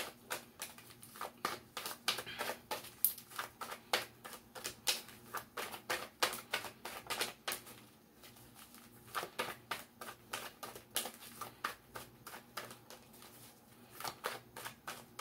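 Deck of tarot cards being shuffled by hand: a run of quick, irregular card snaps and flicks, with two short lulls.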